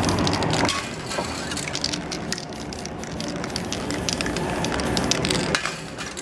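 Aerosol spray paint cans hissing as paint is sprayed in spurts, with many small sharp clicks and crackles over the hiss.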